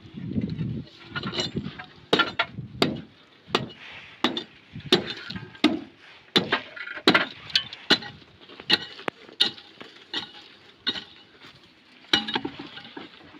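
Metal shovel digging into dry, stony ground: sharp strikes and scrapes of the blade on rock and gravel, with clinks of stones, about two a second.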